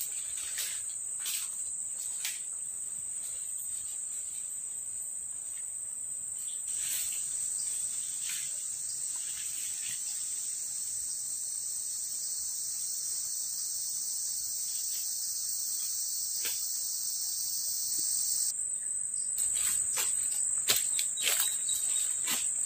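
Steady high-pitched drone of forest insects. A second, slightly lower insect drone joins for about ten seconds in the middle and cuts off suddenly. Footsteps crunch through dry leaf litter, mostly near the start and again near the end.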